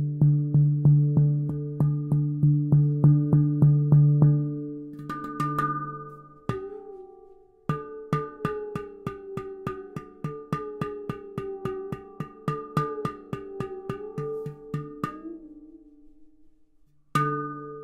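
Oasis D Hijazz 12 handpan played with the fingertips: fast, even taps, about four or five a second, on the low central note, with higher notes ringing over them. After a short pause a second run of taps fades into a brief hush, and a new phrase starts near the end.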